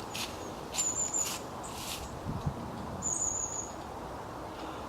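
Bird calls in woodland: a high, thin, wavering note repeated three times, each about half a second long. A few soft rustles are heard in the first two seconds.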